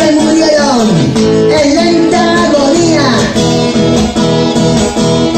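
A man singing live to his own strummed guitar, a solo song with a steady strumming rhythm under the melody.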